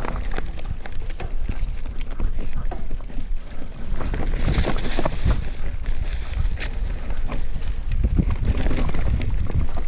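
Mountain bike (a Giant Reign 2 LTD 2017) ridden fast down a dirt and leaf-covered forest trail: wind buffets the microphone under a rush of tyre noise, with the chain and frame rattling and knocking over roots and rocks. A louder hiss comes about halfway through.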